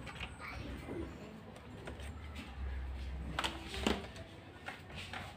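Light clicks and knocks of an analog multimeter in its cardboard box being handled and lifted off an open amplifier chassis, the clearest two about three and a half and four seconds in, over a low hum that comes and goes.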